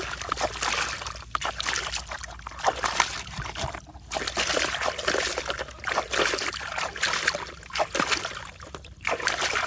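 Water splashing and trickling in irregular bouts, with clicks and scrapes mixed in, pausing briefly about four and nine seconds in.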